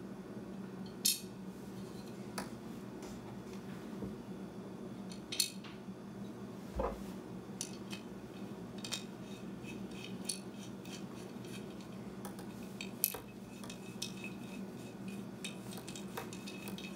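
Small metal clicks and clinks of a hex key, screws and a metal mounting bracket being handled and fitted onto an LED pod light's housing, coming every second or two, with one duller knock about seven seconds in.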